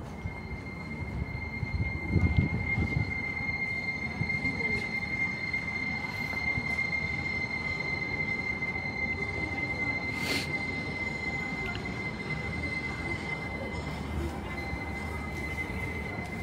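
A steady high-pitched whine, one unchanging tone held for the whole stretch, over low rumbling street noise. A louder rumble comes about two seconds in, and a single sharp click about ten seconds in.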